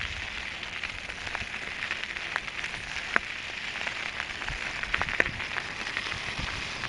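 Open-air meadow ambience: a steady high hiss with scattered small clicks and ticks.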